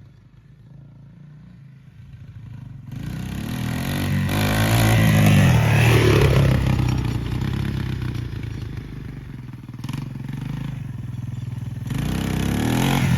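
1986 Yamaha YTM225 three-wheeler's single-cylinder four-stroke engine being ridden: faint at first, then loud about three seconds in as it accelerates, the pitch rising and falling. It eases off around ten seconds in and builds again near the end.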